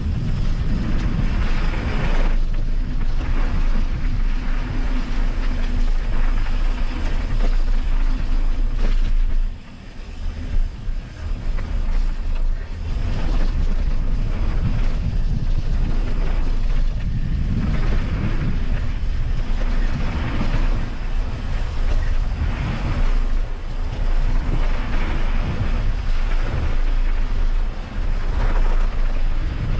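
Wind buffeting the microphone while riding a mountain bike, over a steady low rumble with frequent short knocks from the bike going over the trail. It eases off for a couple of seconds about ten seconds in.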